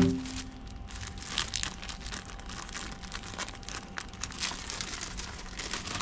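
Clear plastic zip-lock bags crinkling as they are handled, in small irregular crackles, after a brief thump right at the start.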